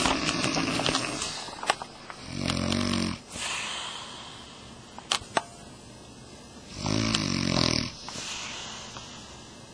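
A woman snoring in her sleep: two long snores about four and a half seconds apart, each followed by a softer breathy out-breath, with a couple of short clicks in between.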